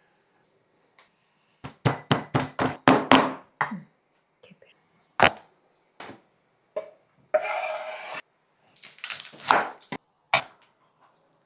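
Kitchen clatter while preparing paneer: a quick run of about eight sharp knocks, about four a second, then a short scraping hiss and a few more clinks and knocks.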